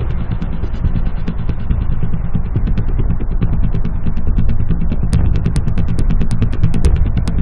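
Car engine running as the car drives past: a steady low rumble with a rapid, irregular clatter, the clicks turning sharper and more prominent from about five seconds in.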